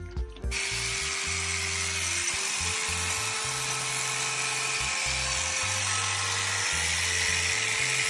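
Electric sheep shears running steadily as they cut through a sheep's fleece, starting abruptly about half a second in, with background music.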